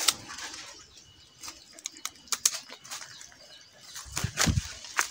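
Rustling and snapping of leafy guava branches, with scattered small clicks and a dull low thump about four seconds in.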